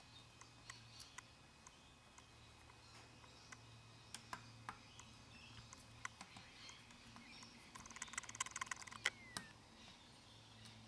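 Faint small clicks and ticks of a screwdriver and loose brass jets against an aluminium carburettor body as the jets are unscrewed and lifted out. A quick flurry of clicks comes about eight seconds in, then one sharper click and a brief falling squeak.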